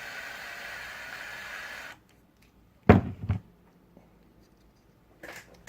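Electric screwdriver motor whirring steadily as it drives the printer's idler bolt, cutting off about two seconds in. About a second later come two loud knocks, then a few faint clicks of parts being handled.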